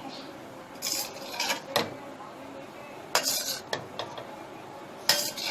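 A cooking utensil scraping and clinking against the pan as fried rice is lightly tossed and stirred, in several short, irregular strokes.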